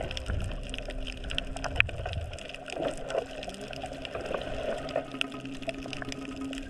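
Underwater reef sound heard through a dive camera housing: water moving past as the diver swims, with dense, irregular crackling clicks.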